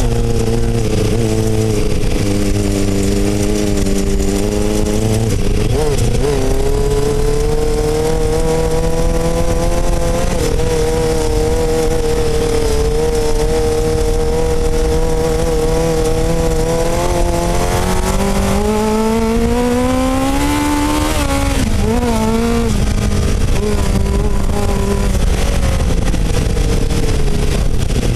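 Kawasaki Ninja 750 inline-four motorcycle engine driving an off-road buggy, heard onboard under way. The engine pitch holds fairly steady, climbs over a few seconds about two-thirds in, then drops sharply, over a constant low rumble.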